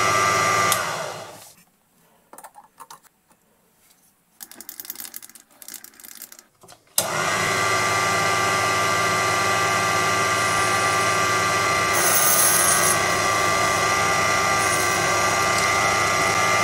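Proxxon PD 250/e mini lathe running with a steady motor whine of several held tones while turning a brass wheel; the sound fades out about a second in, leaving a quiet gap with a few faint rattles, then the lathe starts again suddenly about seven seconds in and runs steadily, with a brief high hiss around twelve seconds in.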